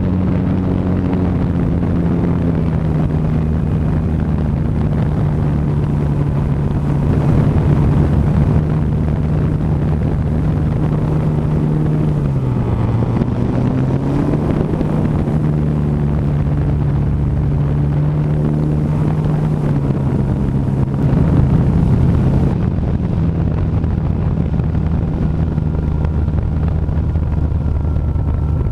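The R/C Sopwith Camel model's motor and propeller droning steadily right beside the onboard camera. The pitch dips for a moment about twelve seconds in and climbs back.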